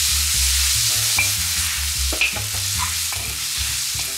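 Sauce sizzling in a wok as it is stirred, with a few sharp taps of the spatula against the pan.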